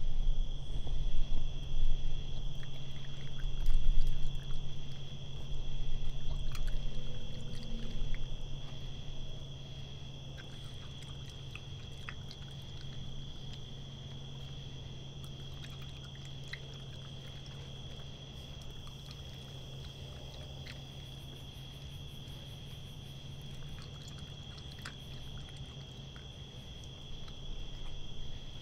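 A raccoon chewing and rummaging through food on a wooden deck, with scattered clicks, loudest in the first eight seconds or so. Behind it, crickets chirr steadily at a high pitch over a low steady hum.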